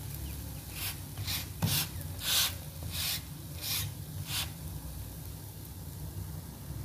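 A kitchen utensil scraping against cookware in about seven strokes, roughly two a second, with one knock near the start of the strokes; the scraping stops a little past the middle.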